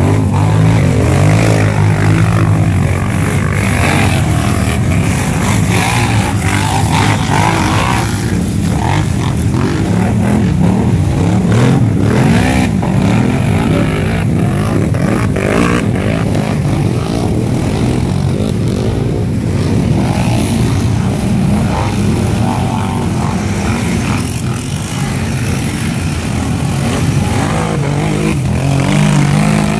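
Several quad bikes (ATVs) revving hard as they churn through a deep mud crossing, their engine notes rising and falling as one after another passes, with mud and water splashing.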